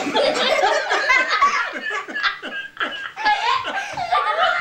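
Laughter in quick repeated bursts, going on without a break.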